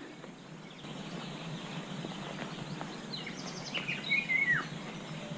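A songbird sings a short phrase of whistled notes, ending in a falling note, about three to four and a half seconds in, over a steady outdoor background hiss.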